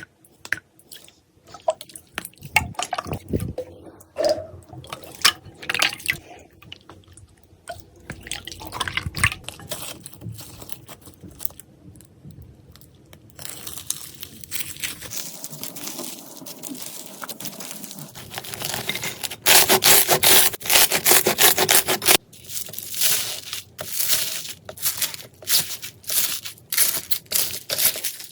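Slime worked by hand: sparse wet clicks and pops at first, then denser crackling from about halfway, loudest in a close run of crackles a little later.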